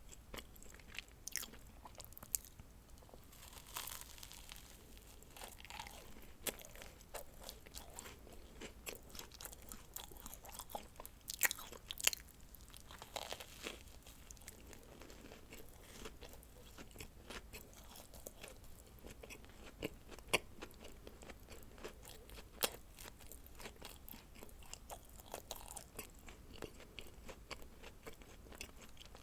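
Close-miked chewing and biting of dacquoise, the meringue-almond sandwich cookies, with many small crunchy clicks and a few sharper crunches, the loudest a little past halfway.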